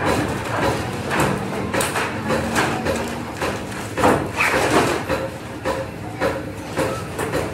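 Irregular knocks and taps of hand tools working sheet metal, with a brief low steady hum in the first half.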